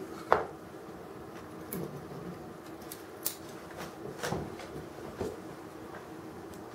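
Scattered faint clicks and light knocks of a diecast model crane's small parts being handled, over a low steady hum.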